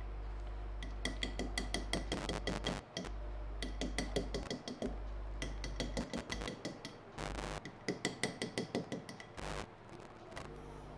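Chalk tapped rapidly against a blackboard in several quick runs of clicks to make dotted lines, with two short scraping chalk strokes in the second half. A steady low electrical hum sits underneath.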